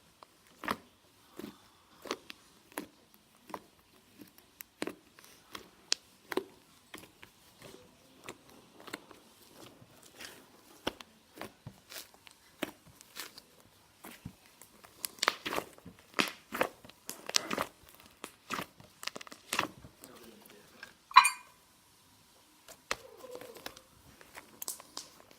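Fluffy slime being squished and poked, giving a string of small irregular crackling pops that come thicker in the middle, with one louder sharp pop near the end.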